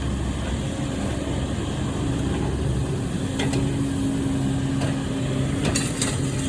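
An engine idling steadily with an even hum. A few faint clicks and clatters come near the end.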